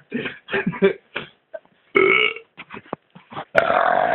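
A man forcing out belches: a short burp about two seconds in, then a long drawn-out belch that starts near the end.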